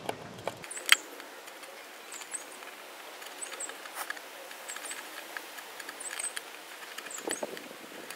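Drill bit twisted by hand against a clear plastic specimen container through painter's tape, scoring pilot marks: a run of light scratches and small clicks, with one sharper click about a second in.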